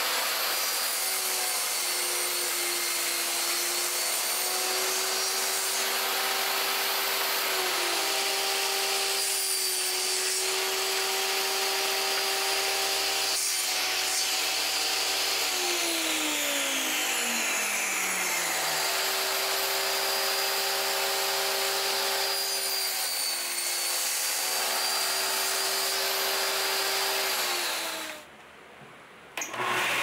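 Table saw running and cutting plywood, a steady motor whine over the noise of the cut. The pitch falls twice, the second time in a slow glide down. The sound cuts off about two seconds before the end.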